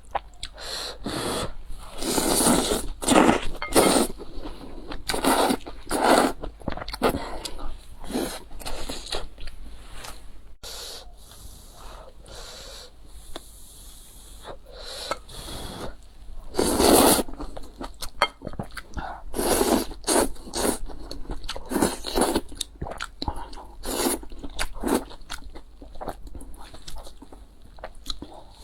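Close-miked mukbang eating sounds: chewing, biting and wet mouth sounds in irregular bursts, with a louder one about halfway through.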